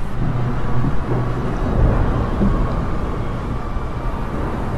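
Steady low rumbling noise.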